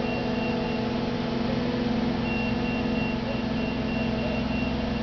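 Engine of a heavy vehicle or crane running steadily, with a warning beeper sounding quick repeated high beeps from about two seconds in.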